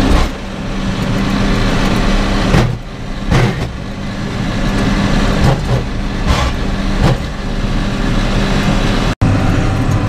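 Tractor engine running steadily under load, heard from inside the cab, while it pulls a Hesston 4590 small square baler. A thud recurs every second or so under the engine note, typical of the working baler.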